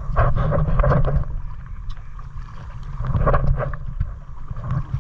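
Kayak paddle strokes splashing in the water, in two spells about a second in and about three seconds in, over wind buffeting the microphone.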